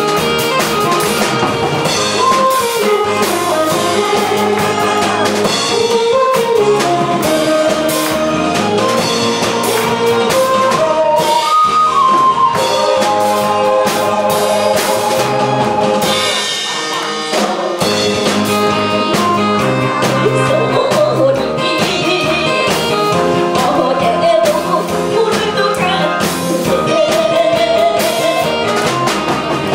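A woman singing a Korean trot song into a microphone over an amplified backing track with drums; the accompaniment thins briefly about two-thirds of the way through.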